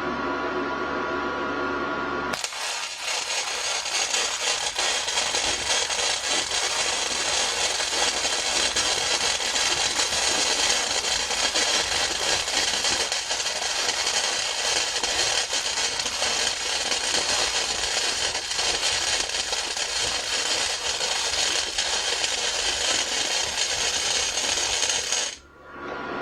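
Century FC-90 flux-core wire-feed welder laying a bead: the arc crackles and sputters steadily for about twenty seconds, starting a couple of seconds in and cutting off sharply near the end. A steady electrical hum comes before and after it.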